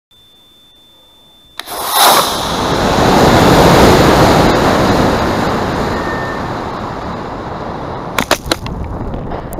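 Model rocket launch heard from a camera riding on the rocket: a faint steady high whine, then about a second and a half in the motor cluster ignites with a sudden loud burst and a loud rushing noise of thrust and airflow that slowly fades into wind noise as it climbs. A few sharp clicks near the end.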